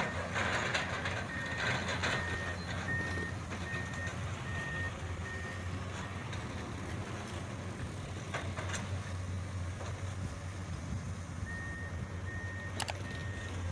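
Heavy construction machinery running with a steady low diesel hum, the Komatsu PC200 excavator at work. A backup alarm beeps in a regular series, roughly twice a second, for the first few seconds, falls silent, then starts again near the end.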